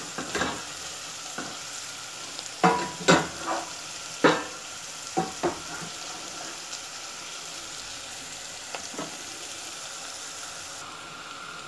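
Chopped onion, garlic and ginger sizzling in butter in a stainless steel pot, with a wooden spoon stirring and knocking against the pot several times in the first half. After that only a steady sizzle.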